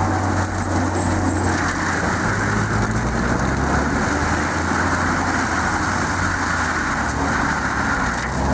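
AHWI RT 800 tracked forestry mulcher's 630 horsepower diesel engine running steadily, with a low hum under a broad grinding noise.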